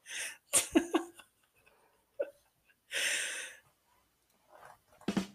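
Stifled, breathy laughter from two people, in short separate bursts with a long hissing exhale about three seconds in.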